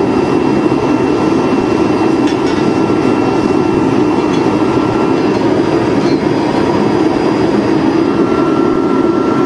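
Home-made waste-oil furnace burning with forced air: a loud, steady roar of the burner, with a thin, steady high whine over it.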